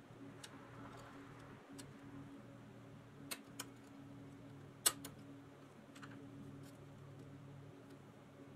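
Scattered small metal clicks and taps as a thin screwdriver tip pries at a rivet on a Kingsbury toy car's pressed-steel part, the sharpest click about five seconds in, over a faint steady low hum.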